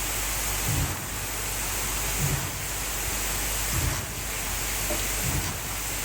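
Concrete pump running steadily with a hissing roar, and a low thump about every second and a half as it strokes concrete through the hose.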